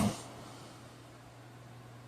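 The pause between two snores of a sleeping man: the end of one snore dies away right at the start, then only a faint steady low hum remains.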